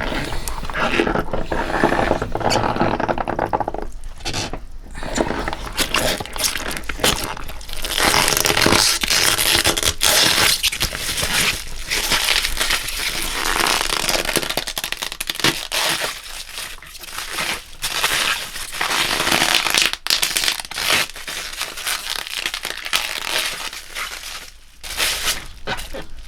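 Thick natural-rubber long gloves squeezing and wringing a wet towel in water: a busy, continuous run of clicks and rushing, squelching noise, easing somewhat in the last third.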